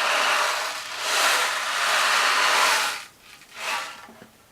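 Ocean drum tilted back and forth, the beads inside rolling across the drumhead in a wave-like wash: two long swells, then a short one near the end.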